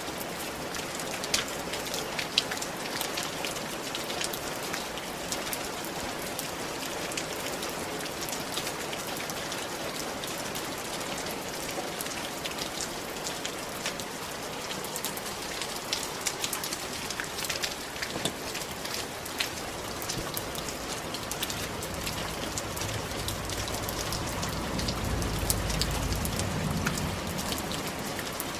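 Steady rain on clay roof tiles, a dense hiss with many sharp individual drop ticks. In the last several seconds a low rumble swells and fades under it.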